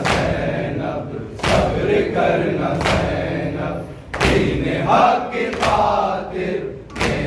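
Men chanting a Muharram lament together while the crowd beats their chests in unison (matam). A heavy slap falls on the beat about every second and a half, six times.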